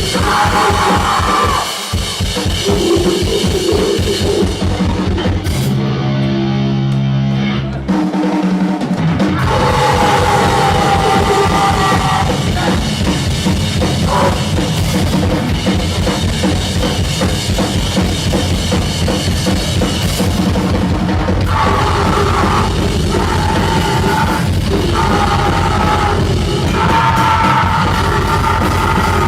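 Live noisecore: rapid, dense drumming under a wall of distorted noise. About six seconds in the drums stop for two seconds while a few low notes sound, then the full din resumes.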